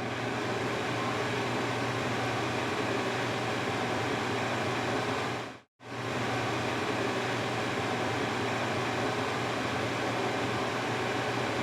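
Electric fan running, a steady rush of air over a low motor hum. About halfway through the sound dips to silence for a moment and comes straight back.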